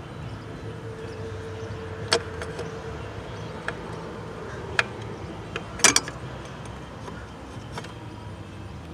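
Upper radiator hose and metal thermostat housing being worked loose and lifted off the engine by hand: scattered clicks and knocks, the loudest a double knock about six seconds in.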